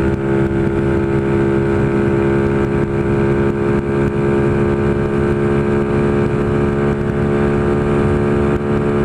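Honda Pop 110 motorcycle's small single-cylinder four-stroke engine running at high revs, its pitch holding nearly level as it is pushed toward top speed.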